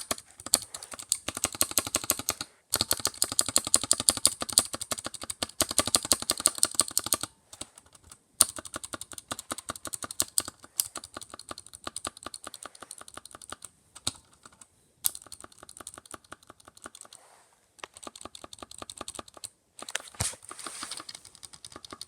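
Mechanical keyboard being typed on rapidly: dense streams of key clacks in long runs, broken by a few brief pauses.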